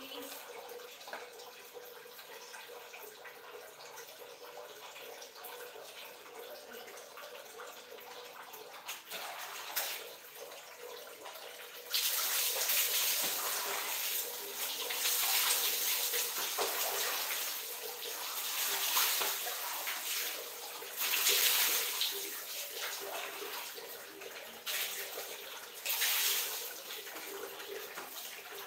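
Water running steadily in a small tiled bathroom, then from about 12 seconds in, repeated louder splashes as dipperfuls of water are poured from a plastic dipper over a person and onto the tiled floor.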